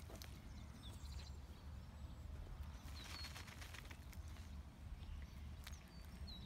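Quiet outdoor ambience: a steady low rumble, a few short high bird chirps, and faint rustling about three seconds in as fly-predator pupae are shaken from a plastic bag onto the ground.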